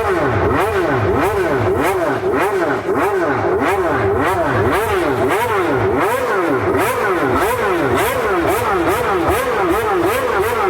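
Honda RA121E V12 engine of a 1991 McLaren MP4/6 Formula One car revving at a standstill, the throttle blipped again and again so the pitch rises and falls about three times every two seconds.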